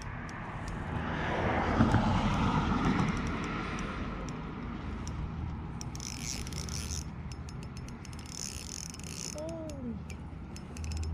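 Pflueger spinning reel on an ultralight trout rod whirring and clicking in short bursts, about six seconds in, again near nine seconds and once more at the end, while a hooked common carp fights on the line.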